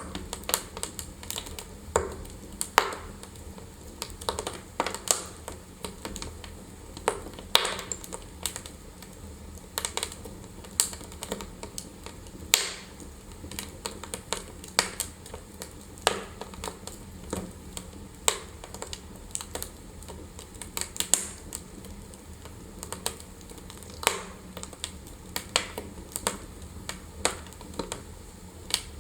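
Wood fire burning in a fireplace, crackling with irregular sharp pops over a soft steady background.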